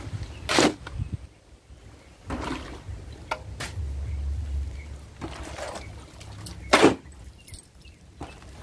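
Steel shovel scraping into a pile of sand and tipping loads into a bucket: a run of separate scrapes and pours, the loudest about seven seconds in.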